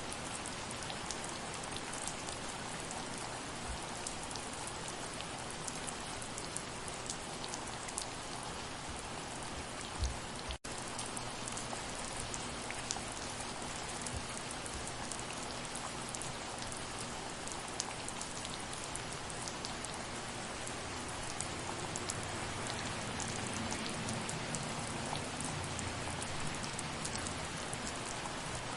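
Steady soft rain with individual drops ticking close by. About ten seconds in there is a low thump, then the sound cuts out for a split second.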